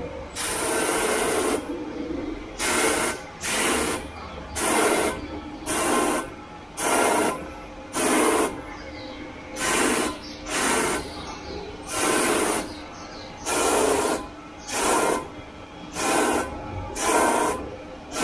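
Automatic crystal pendant-making machine running: a steady machine hum broken by repeated short bursts of noise, roughly one a second, some coming in quick pairs.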